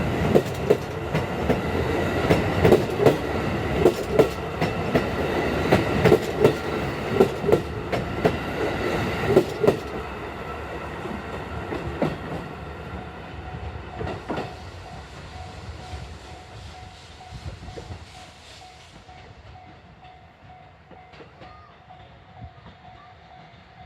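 Steam train hauled by the C57 steam locomotive going by with a loud rhythmic clatter, about two beats a second. After about ten seconds it fades steadily as the train draws away.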